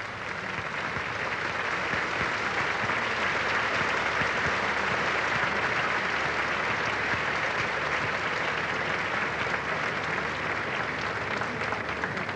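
Circus audience applauding: dense clapping that swells over the first couple of seconds, holds steady, and eases off slightly near the end.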